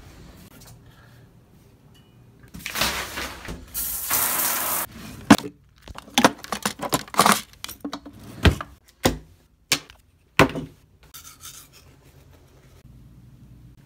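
Toiletries being handled and set down on a bathroom counter. A burst of hissing noise comes first, then a run of sharp knocks and clicks as plastic items such as a deodorant stick and a toothpaste tube are put down.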